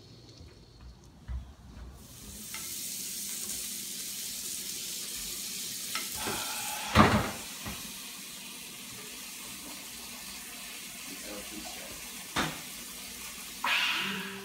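Food sizzling steadily in a round lidded electric griddle. There is a loud clack about seven seconds in, another sharp knock near twelve seconds, and a brief burst of voice near the end.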